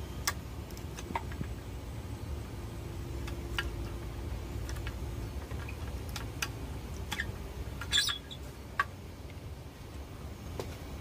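Irregular sharp clicks and knocks from a homemade steel hand-lever tool cracking and scooping hard pangi (kepayang/keluak) seeds, with a louder cluster of cracks about eight seconds in, over a steady low background rumble.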